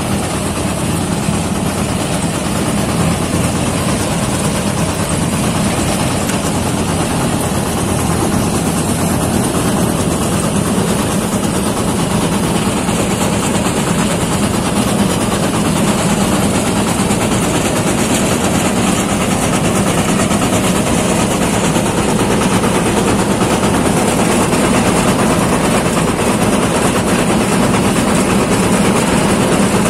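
New Holland combine harvester running steadily as its grain header cuts alfalfa: a continuous engine drone mixed with the noise of the header working, getting a little louder toward the end.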